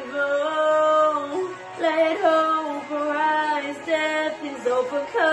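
Worship song: a woman singing long held notes over the accompaniment, with the pitch stepping between phrases.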